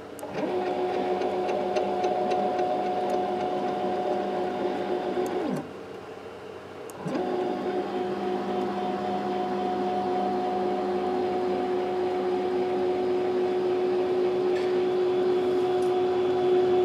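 Stepper motors of a 3018 desktop CNC router driving an axis at a steady jog, with a steady whine. The whine winds down and stops about five seconds in, then winds back up a second and a half later and runs on.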